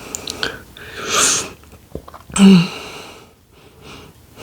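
A person sniffing about a second in, then one loud, short, sharp hiccup about two and a half seconds in: a hiccup brought on by eating extremely spicy noodles.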